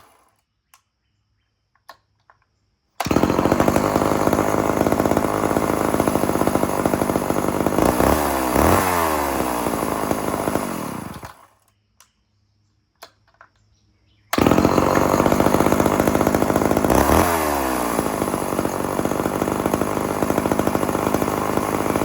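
Homelite Super XL two-stroke chainsaw catching and running, revved up and back down once, then cutting off after about eight seconds. It catches again a few seconds later and runs on, revved once more. A few light clicks of handling sound in the quiet gaps.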